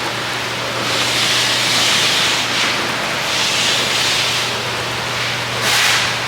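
Loud hissing that swells twice for a second or so and once more, briefly and sharply, near the end, over a steady low hum.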